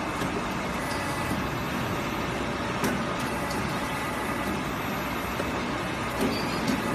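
CNC servo pipe-bending machine running, a steady mechanical hum from its hydraulic pump and drives. A sharp click about three seconds in and a couple of knocks near the end come from the bend head and clamp moving.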